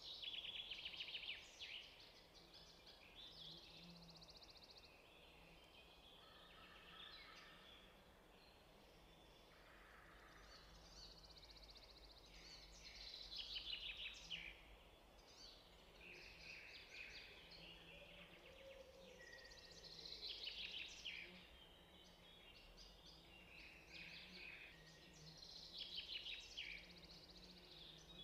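Faint birdsong: short trilled chirping phrases that come back every few seconds, over a low steady hum.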